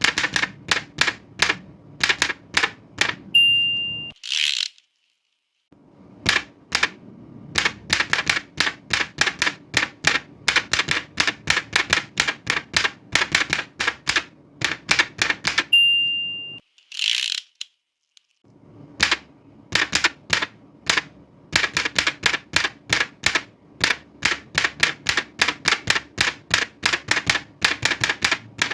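Old manual typewriter typing in fast runs of key strikes. Twice the end-of-line bell dings once and the carriage is pushed back with a short sliding rasp, followed by a second or so of silence before typing resumes.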